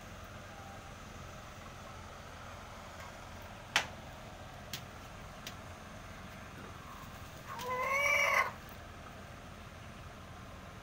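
A single drawn-out, arched call from a gamefowl chicken, rising then falling in pitch, about three-quarters of the way in. A sharp click comes about four seconds in, followed by two faint ticks.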